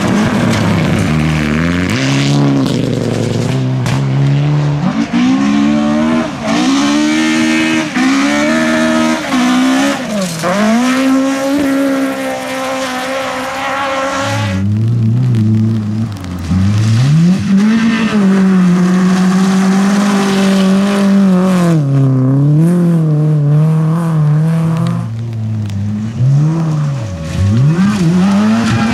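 Rally car engines revving hard, one car after another, the pitch climbing and then dropping sharply at each gear change and lift-off. The first is a Mitsubishi Lancer Evolution's turbocharged four-cylinder driven flat out on gravel.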